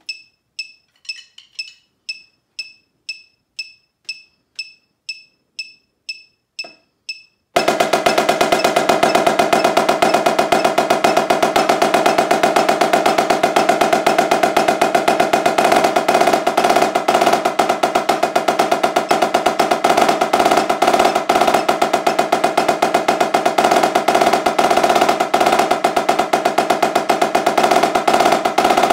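A metronome clicking about twice a second, at 120 beats per minute, for the first seven seconds or so; then a Yamaha marching snare drum comes in with a fast, even, unbroken stream of single strokes played with sticks, the drumhead ringing under the hits.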